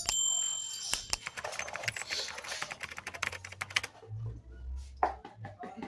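Rapid, irregular clicking and tapping of small metal parts, such as clipper blades being handled, for about four seconds, then fainter, sparser clicks.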